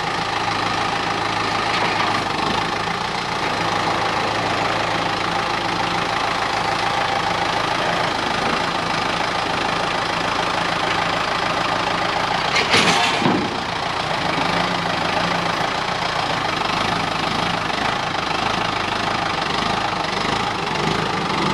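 An engine running steadily at idle, with a brief, sharp noise about halfway through.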